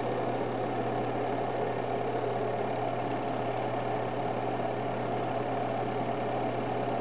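Projector running: a steady mechanical whir with a fast, even ticking over a constant low hum.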